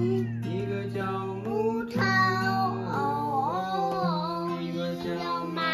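Acoustic guitar strummed as accompaniment while a toddler sings along, drawing out the vowel in long held notes that waver in pitch.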